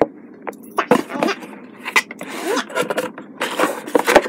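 Close handling noise: a series of sharp knocks and rustles as hands move and rub a canvas sneaker right by the microphone.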